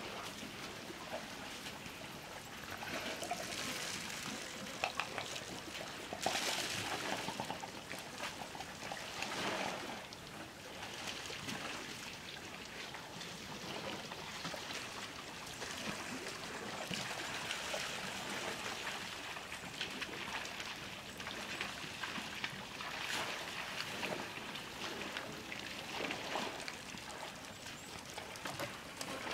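Water splashing and trickling as elephants drink, rising and falling in uneven swells every few seconds.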